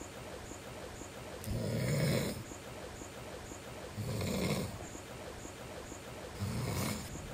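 A man snoring in his sleep: three long, rasping snores about two and a half seconds apart.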